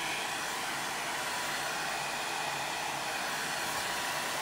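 Handheld blow dryer running steadily, an even rush of air.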